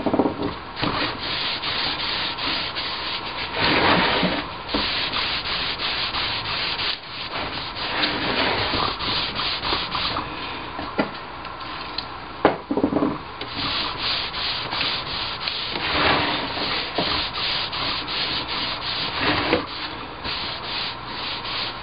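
Paper towel rubbing wood finish onto a wooden drawer frame, many quick back-and-forth strokes with short pauses, polishing the freshly sanded wood to a luster.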